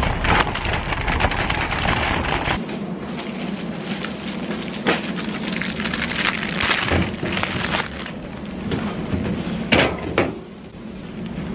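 Wire shopping cart rattling as it is pushed, heard from close up on the cart, with a low rumble from the wheels on asphalt for the first couple of seconds. Sharper knocks and clatter come now and then as groceries are put into the basket.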